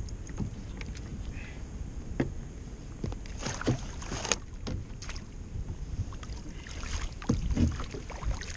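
Wind and water noise around a plastic fishing kayak, with scattered sharp knocks and clatters of tackle and a landing net against the hull as a fish is netted aboard. A few heavier thumps come near the end.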